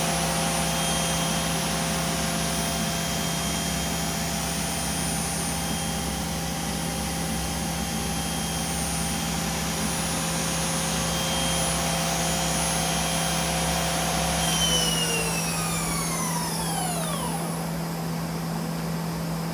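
Okuma Spaceturn LB3000-EXMYC CNC lathe spindle running at a steady 4,000 RPM with a high multi-tone whine over a steady machine hum. About fourteen seconds in, the whine falls away in pitch as the spindle slows down and stops, leaving only the hum.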